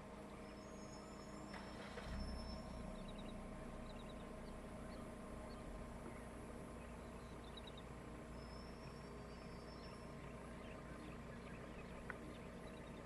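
Faint steady hum of an idling vehicle engine, with a few short high bird chirps over it and a brief low rumble about two seconds in.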